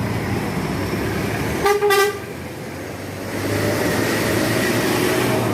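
A bus horn gives two short, quick honks about a second and a half in, over the steady running of bus engines. From about three seconds in, the engine and road noise grows louder.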